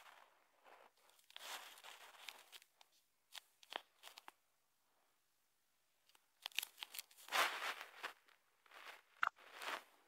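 Irregular crinkling and rustling noises in short bursts close to the microphone, with a quiet gap in the middle and the loudest bursts near the end.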